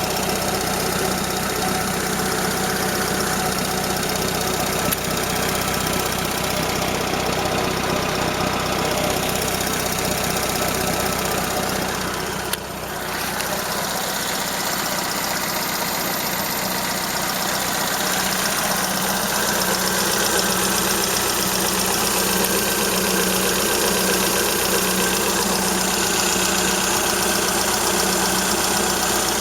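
Toyota 4A-FE four-cylinder engine idling steadily with a light rhythmic knocking, which the owner cannot place: a valve tapping or the shafts rattling, along with a slight exhaust leak at the flex pipe. The sound dips briefly about twelve seconds in.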